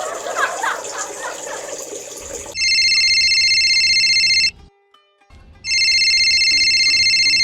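Telephone ringing twice, an electronic trilling ring of about two seconds each with a second's gap between, after a short jumble of noisy sound.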